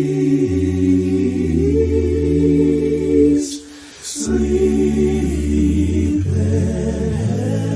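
A cappella voices singing long held chords without clear words, the low notes stepping between pitches. There is a short break with two quick hissy sounds about three and a half seconds in.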